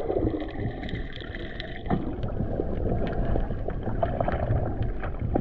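Muffled underwater sound of water sloshing and bubbling around a snorkeler swimming near the surface, with a low rumble and scattered small clicks.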